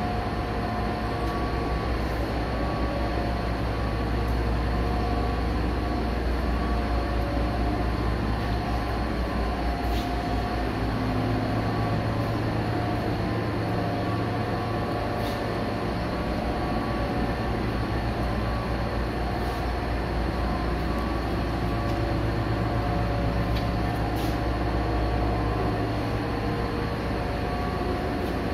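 Steady low machine hum, even throughout, with a few faint steady whining tones above it.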